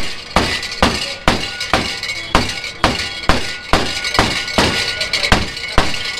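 Metal utensil striking metal cookware in a steady rhythm, about two clangs a second, each ringing briefly, as soya chaap is cooked.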